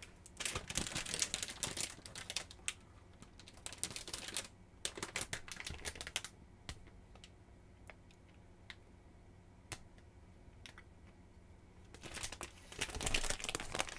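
A plastic snack bag crinkling and crackling as it is handled and turned over in the hands, in several dense bursts with scattered single clicks between them, and another burst of crinkling near the end.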